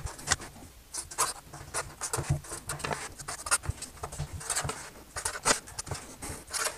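A pen scratching quick handwritten words onto paper sticky notes in short, irregular strokes, with occasional light knocks on the tabletop.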